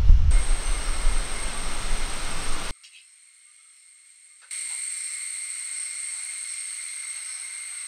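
Steady background hiss with two thin, steady high tones. It cuts out abruptly for about a second and a half partway through, then comes back quieter.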